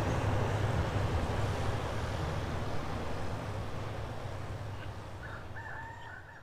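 Low steady rumble of a distant diesel locomotive with some wind noise, fading out. A few short bird chirps come in about five seconds in.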